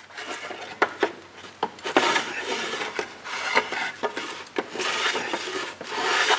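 Hand plane shaving a wooden plank's scarf in several long rasping strokes, with a few sharp knocks of the plane on the wood in the first second or so.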